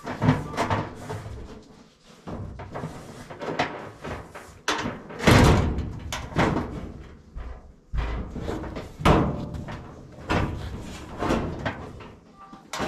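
Irregular knocks and clanks, a dozen or so at uneven intervals, each dying away quickly, from the sheet-metal cabinet of a Whirlpool dryer being handled during reassembly.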